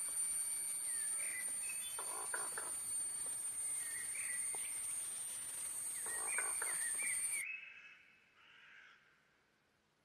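Birds calling: a short cluster of harsh calls about every four seconds, with brief chirps between, over a steady high-pitched whine. The sound drops away suddenly about seven and a half seconds in, leaving only faint calls.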